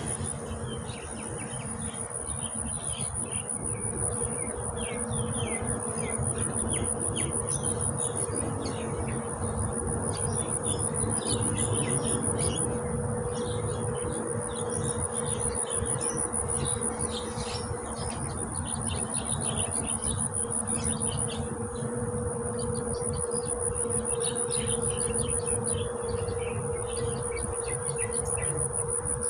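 Insects trilling in a steady, high-pitched drone, with scattered short chirps over it and a low steady hum underneath.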